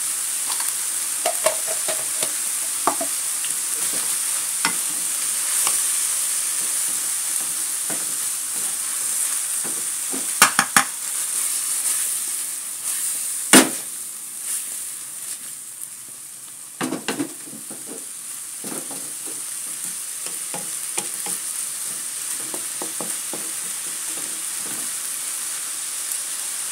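Shrimp and bitter melon sizzling in a hot wok as they are stir-fried with a wooden spatula, with a few sharp knocks and scrapes of the spatula against the pan. The sizzle grows quieter for a few seconds past the middle, then picks up again.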